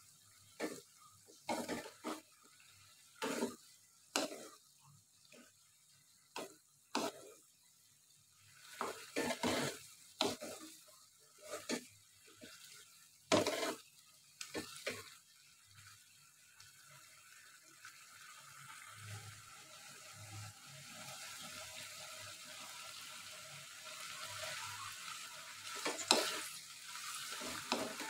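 Wooden spatula scraping and knocking against a ceramic-coated wok as beef tendon and tofu in soy-sauce broth are stirred, in short separate strokes. From about halfway a sizzling hiss builds and grows steadily louder as the sauce boils down.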